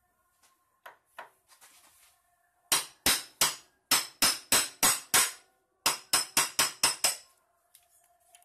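Hammer tapping a steering lock cylinder into a vintage Vespa 150's steering column: about eight sharp metal-on-metal strikes, a short pause, then about six quicker ones.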